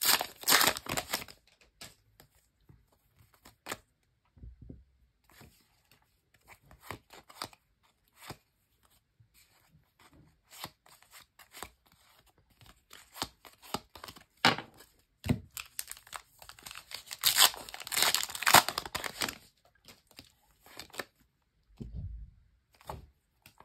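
A foil trading-card pack torn open and crinkled in the hands during the first second, followed by cards being handled and flicked through with scattered short clicks and rustles. A longer, louder burst of rustling comes about two thirds of the way in.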